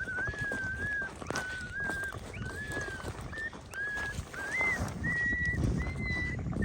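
Electronic predator caller playing a repeated high, steady whistle-like call, about eight notes each roughly half a second long, over a low rumble of rain and movement that grows louder near the end.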